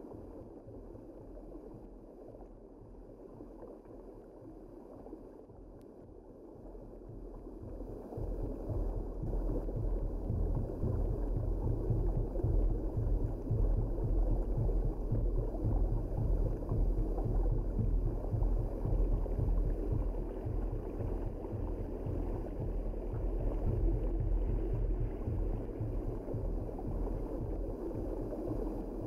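Muffled, steady underwater rushing of moving water heard through a diving camera's housing, with a low rumble beneath; it grows louder about eight seconds in.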